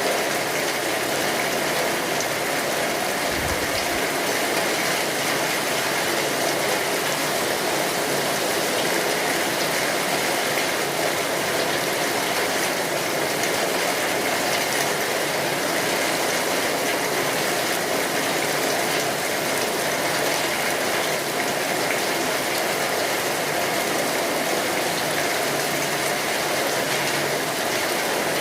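Steady, even rain falling on a tin roof.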